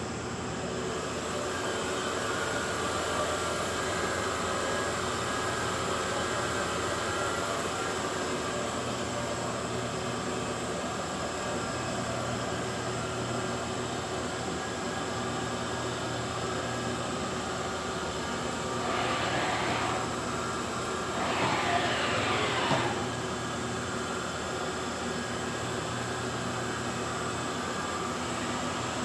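CNC vertical machining center running under power: a steady mechanical hum and hiss with faint whining tones. About two-thirds of the way through come two short, louder rushing noises a couple of seconds apart.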